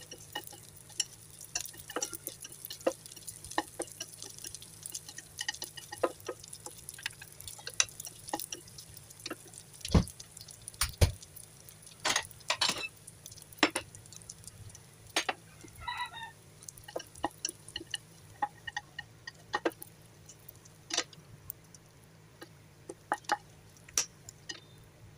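Wooden spatula and chopsticks tapping and scraping a pan while stirring fried rice: irregular light clicks and taps, with two heavier knocks about ten and eleven seconds in.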